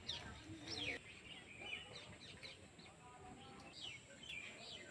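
Small birds chirping faintly: many short, quick calls that each slide downward in pitch, repeated at irregular intervals.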